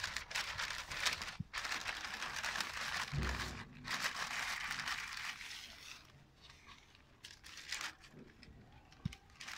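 Brown paper crinkling and rustling as burgers are wrapped in it by hand, busiest for the first six seconds and fainter after, with one soft low thump about three seconds in.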